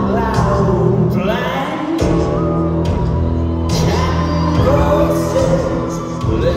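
Rock band playing live, with a male lead singer singing over sustained low bass notes, heard from the audience in a large hall.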